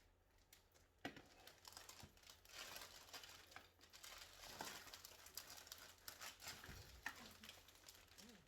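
Plastic wrapping crinkling and rustling faintly as it is pulled out of a plant pot, with loose sand spilling, broken by a few sharp clicks.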